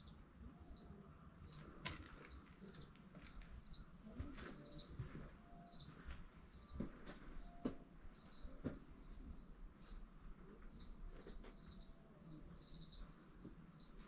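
Quiet ambience with an insect, likely a cricket, giving short high chirps about once or twice a second. A few soft knocks are heard, twice close together about halfway through.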